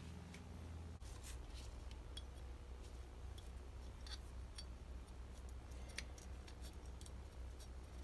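Scattered light clicks and taps of a copper smoke-stack cap being handled and fitted onto a painted model locomotive smoke stack, with one sharper click about six seconds in, over a steady low hum.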